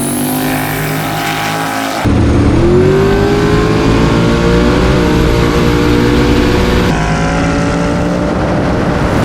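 Race car engines at high throttle in edited clips: one steady engine note, then a sudden cut to a louder car accelerating with its pitch climbing, and another cut near the end.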